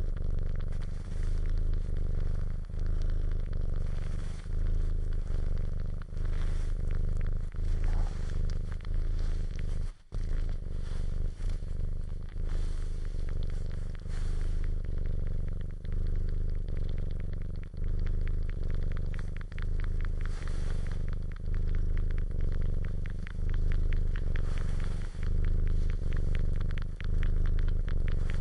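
Domestic cat purring close up, a deep steady rumble that swells and eases with each breath, every second and a half to two seconds, over soft fine clicking from the cat suckling. The sound drops out briefly about ten seconds in.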